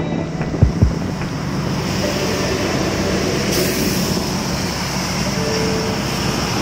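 Road noise from a moving two-wheeler on a wet road: a steady engine and wind rush, with a couple of low thumps just under a second in. The traffic noise swells from about two seconds in as trucks go by.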